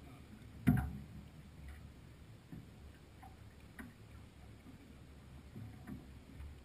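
Knocks and clicks aboard a sailing yacht under way, muffled: one sharp knock about a second in, then a few fainter ticks and knocks, over a low steady rumble.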